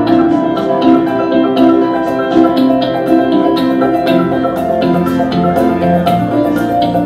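Instrumental music: a steady run of quick struck notes over sustained chords.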